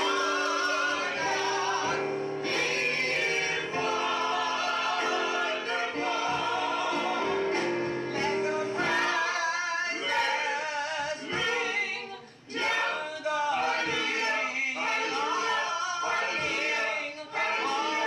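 Gospel choir of men's and women's voices singing a hymn, with long held notes in the first half and more moving lines after, and a brief pause about twelve seconds in.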